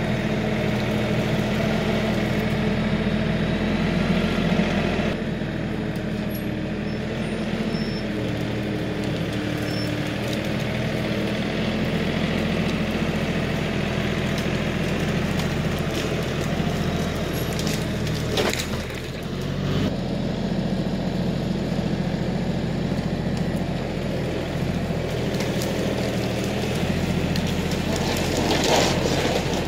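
Kioti NX6010 tractor's diesel engine running steadily under working load, its pitch shifting a few times. Sharp crackling breaks in about two-thirds of the way through and again near the end.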